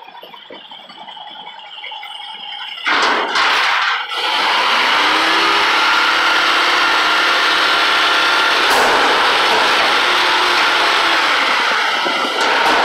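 Peterbilt McNeilus front-loader garbage truck lifting a dumpster over its cab: the engine revs up suddenly about three seconds in to drive the hydraulic arms and then runs loud and steady, with a high squeal over it.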